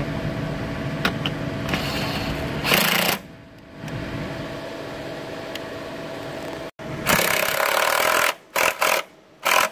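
Power tool driving the battery hold-down bolt through a 13 mm socket on an extension, running in short bursts: one about three seconds in, a longer one about seven seconds in, then three quick bursts near the end as the bolt snugs down.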